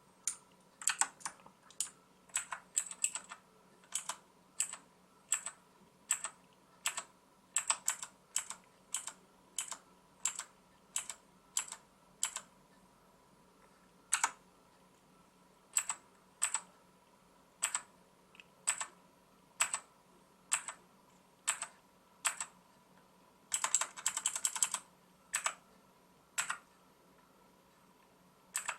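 Xenics STORMX TITAN MARK VII mechanical keyboard with clicky blue switches, keys pressed one at a time, each a sharp click, about one to two a second with short pauses. Late on comes a quick run of rapid presses.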